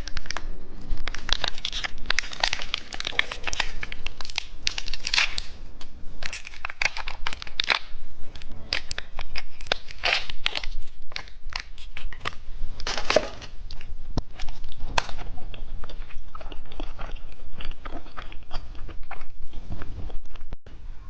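Close-miked crinkling and crackling of a plastic candy wrapper being handled and torn open: a dense, irregular run of sharp crackles.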